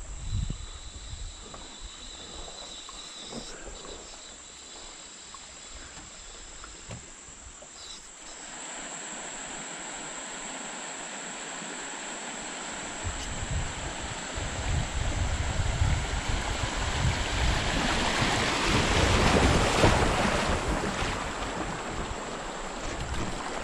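Shallow creek water rushing over a gravel riffle around a drifting kayak, with wind rumbling on the microphone. The rush comes in about a third of the way through and is loudest a few seconds before the end.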